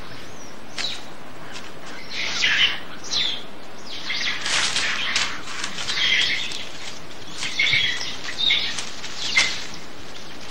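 Rhesus macaques calling in short, irregular high-pitched bursts, some running together, typical of a vocal squabble within the troop.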